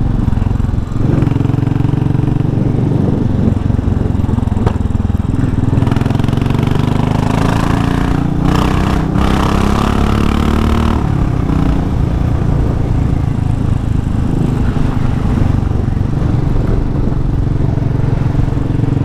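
Royal Enfield Classic 500's single-cylinder engine running loudly through an aftermarket exhaust while riding. The engine note climbs as the bike accelerates from about seven to eleven seconds in, then settles to a steady cruise.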